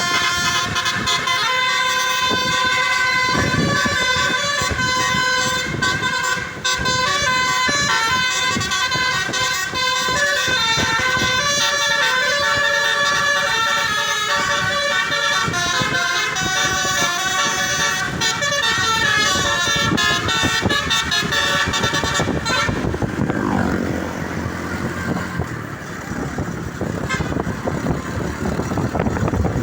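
Indonesian bus telolet basuri horn, a set of roof-mounted air-horn trumpets, playing a quick tune of several tones at once that step up and down in pitch. About 23 seconds in the tune stops and a lower rumbling noise carries on.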